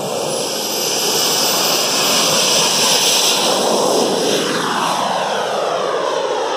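Twin model jet turbines of an RC F-14 on its takeoff run, growing louder as the jet approaches, then falling in pitch as it lifts off, passes and climbs away.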